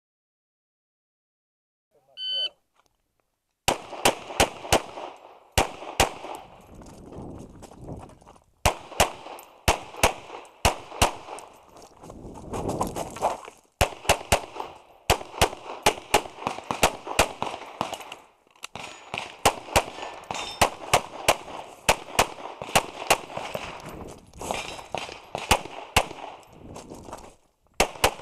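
Shot timer start beep about two seconds in, followed by a stage's worth of rapid 9mm pistol fire from a Walther Q5 Match: shots mostly in quick pairs, with short breaks between strings as the shooter moves between positions.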